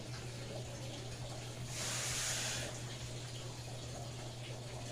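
A brief rush of water lasting about a second near the middle, over a steady low hum.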